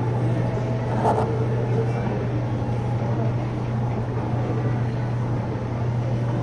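Coin-operated boat kiddie ride's drive motor running with a steady low hum as the ride rocks.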